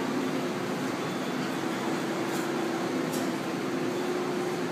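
Taiwan Railways E1000 push-pull Tze-Chiang express pulling slowly out of the platform: a steady hum and rumble from the passing passenger cars, with two faint clicks about two and three seconds in.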